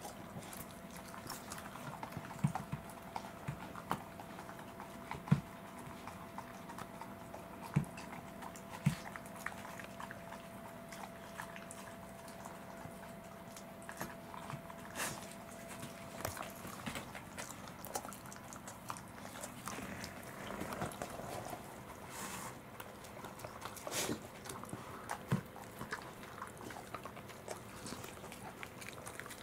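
Two Welsh corgis eating soft soy pulp from a plate and a bowl: irregular licking, smacking and chewing, with sharp clicks now and then, the loudest in the first nine seconds.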